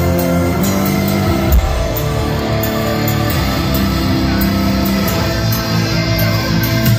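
Live heavy metal band playing loudly through a stadium PA, with electric guitars prominent.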